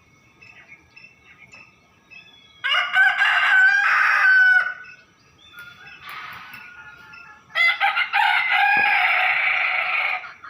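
Rooster crowing twice, each crow about two seconds long, with a fainter call between them and small birds chirping faintly.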